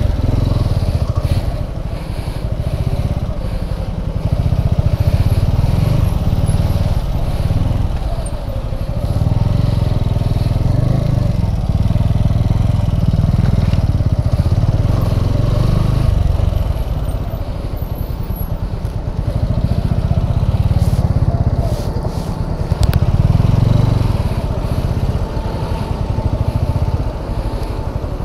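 TVS Apache RTR 200's single-cylinder engine running as the motorcycle is ridden, its deep note rising and falling several times.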